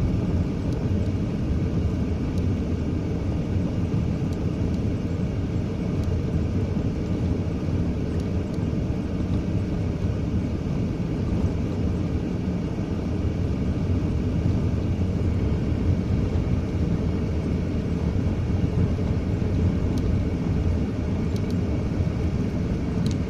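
Delivery van driving, a steady engine and road rumble heard from inside the cab.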